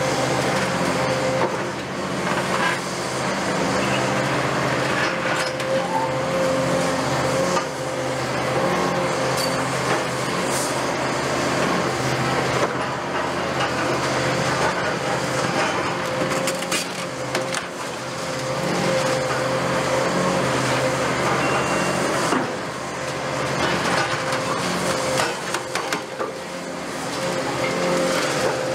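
Caterpillar 330F hydraulic excavator's diesel engine running under load with a steady hydraulic whine, while its crusher attachment breaks up foundation concrete with repeated cracks, knocks and clatters of rubble.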